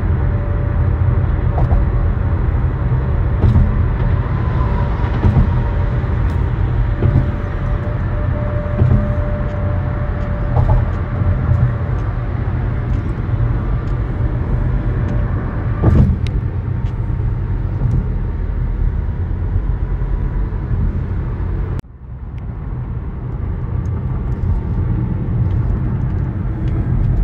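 Inside a moving car: steady road and engine rumble at driving speed. The rumble drops suddenly about 22 seconds in, then builds back up.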